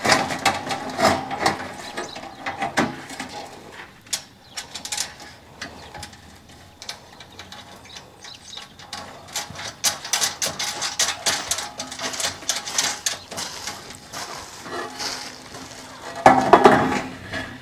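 Corrugated metal raised-bed panels clinking and rattling as they are handled and fitted together, with runs of quick metallic clicks that are densest in the middle and a louder clatter near the end.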